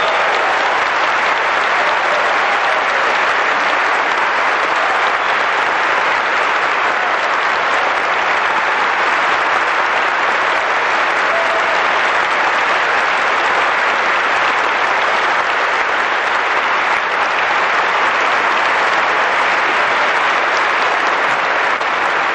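Audience applauding steadily: a long, even round of clapping.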